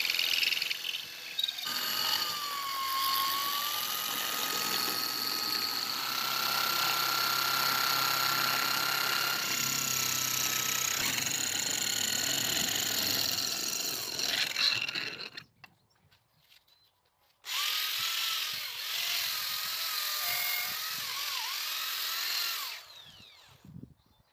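Electric drill spinning a eucalyptus stick through the cutting blade of a dowel-maker jig at the 18 mm hole, shaving it into a round dowel: a steady whine with a cutting rasp. It runs for about fifteen seconds, stops for about two, then runs again for about five seconds with a wavering pitch.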